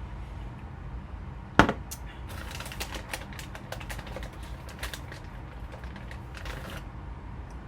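A sharp knock about a second and a half in, then about four seconds of quick clicks and rustling from objects being handled, over a steady low hum.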